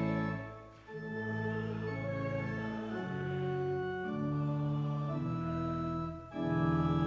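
Church organ playing a hymn in sustained chords, with brief breaks between phrases about a second in and again near the end.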